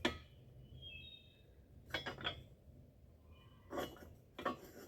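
Steel excavator thumb parts and pin being handled: a few sharp metal-on-metal clinks with short ringing, at the start, about two seconds in and near the end.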